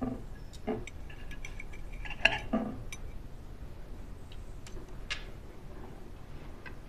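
Knife and fork clinking against a plate as a meal is eaten: a handful of separate clinks, the loudest about two seconds in.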